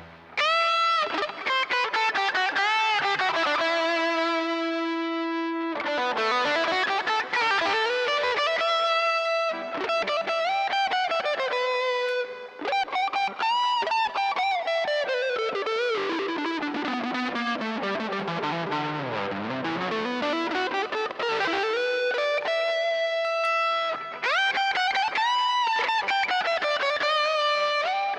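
Electric guitar played through a Tech 21 SansAmp GT2 amp-simulator pedal set for an overdriven tone, playing a single-note lead melody. Notes are held long and slide and bend up and down in pitch, with a short break about twelve seconds in.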